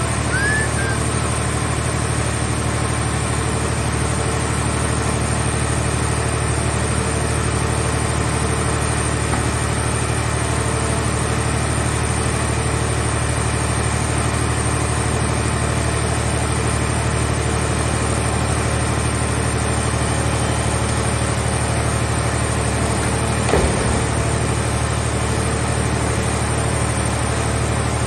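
A hydraulic scrap-car baler's power unit running at a steady, even drone, with a brief knock near the end.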